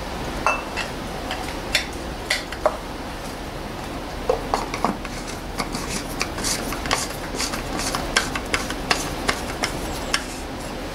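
Irregular light clicks and clinks of the oil filter housing cap and a metal cup-shaped part being handled and threaded on by hand under the engine, busier in the second half, over a steady background hum.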